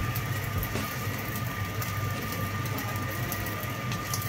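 A steady low machine hum with a thin constant whine over it, as from a motor running in the kitchen, under faint frying in the pan. A couple of light taps of the wooden spatula on the pan come about a second in and near the end.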